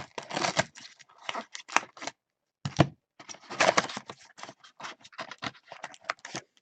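Packaging of a 2017 Panini Absolute Football mega box being handled as its card packs are pulled out: irregular crinkling and rustling of wrapper and cardboard, with a short pause about two seconds in.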